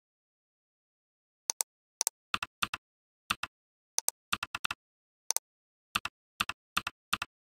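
Sharp clicks of a computer mouse, mostly in quick pairs, coming irregularly about every half second after a silent first second and a half.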